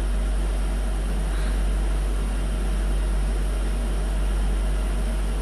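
Steady low hum with an even hiss underneath; nothing else stands out.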